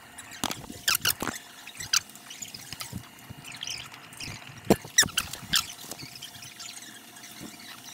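Scattered sharp clicks and knocks from hands and tools working at a car's brake caliper and garage floor during brake bleeding, with a cluster of louder knocks about five seconds in.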